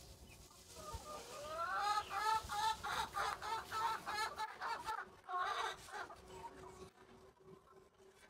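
A chicken calling: a rising note, then a quick run of repeated squawks about four a second, trailing off around six seconds in.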